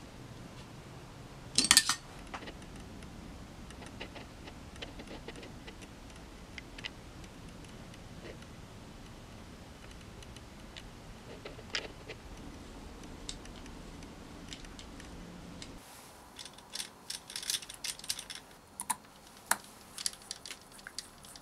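Small metal clicks and ticks of hand tools on a small RC crawler's chassis and hardware, with one sharp clack about two seconds in. In the last few seconds comes a run of quick, irregular clicks as a hex driver works the hub nut of a small RC wheel.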